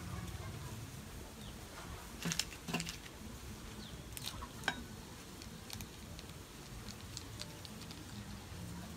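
Small plastic seasoning sachets crinkling and clicking as they are squeezed out by hand over a ceramic bowl, with a few sharper clicks between two and five seconds in.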